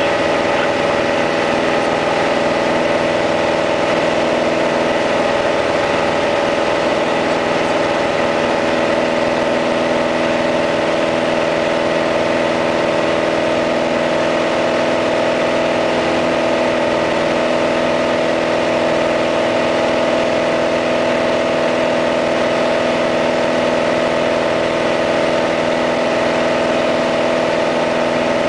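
Piper PA-28-180's four-cylinder Lycoming O-360 engine and propeller droning steadily at constant power, heard inside the cabin in flight, with a steady hiss of air over the airframe.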